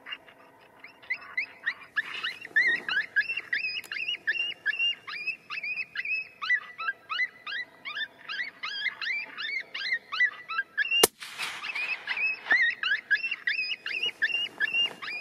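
A predator call plays short, high-pitched yelping distress cries, about three a second, the kind used to lure coyotes in. About eleven seconds in a single rifle shot cracks out, and the yelping carries on after it.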